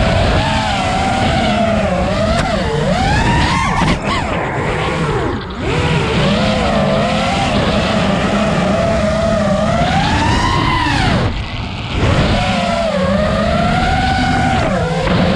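Motors and propellers of a 5-inch FPV freestyle quadcopter (iFlight Xing 2306.5 1777kv motors on 6S, Gemfan Hurricane props) whining, the pitch constantly rising and falling with the throttle. The sound briefly drops away about 4, 5.5 and 11.5 seconds in, where the throttle is cut.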